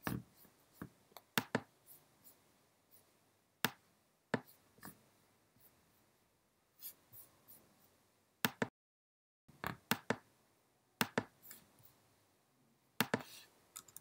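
Faint, sporadic light clicks and taps, single or in quick little clusters a second or two apart, with a brief cut to dead silence about nine seconds in.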